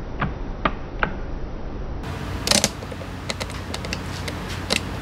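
Clicks and light rattles of hand work on a Honda SCR100 scooter's air filter housing. There are three sharp clicks in the first second, a short scraping rattle about halfway, then a run of faint ticks, all over a steady low hum.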